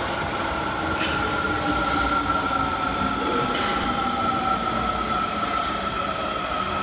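Kita-Osaka Kyuko 9000 series subway train pulling into an underground station, the rumble of its wheels on the rails under a high motor whine that slowly falls in pitch as the train slows.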